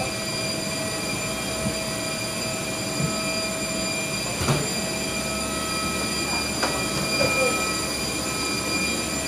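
Steady jet airliner cabin noise: a low rush of engines and airflow with several steady high whines, and a few light knocks.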